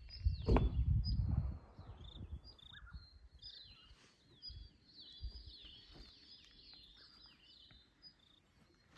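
A chorus of small birds chirping and twittering throughout, in quick high-pitched calls. A low rumble with a sharp knock about half a second in, lasting about a second and a half, is the loudest sound, followed by a few faint low thumps.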